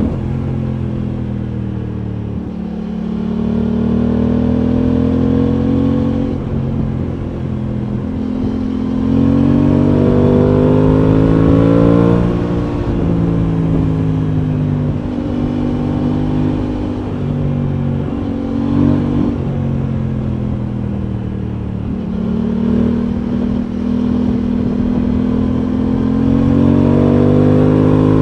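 Aprilia Tuono 660's parallel-twin engine running under way, its pitch climbing for several seconds, dropping about twelve seconds in, then steadier before climbing again near the end.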